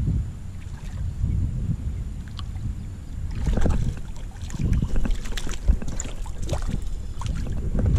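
Low wind rumble on the microphone. From about three and a half seconds in, a hooked crappie splashes and thrashes at the surface of shallow water as it is reeled to the bank and grabbed by hand.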